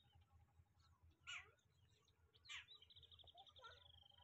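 Birds calling faintly: two short, sharp calls about a second apart, then a quick trill near the end, over a low rumble of wind.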